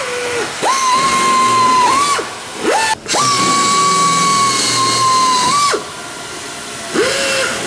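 Pistol-grip pneumatic air drill whining with a hiss of exhaust air as it drills out rivets in aluminium aircraft skin. It runs in several bursts: about one and a half seconds, a brief blip, then about two and a half seconds, with a shorter, lower-pitched run near the end.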